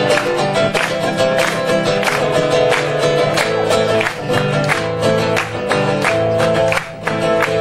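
Instrumental break in an Argentine folk song: acoustic guitar strummed in a steady, even rhythm, with no singing.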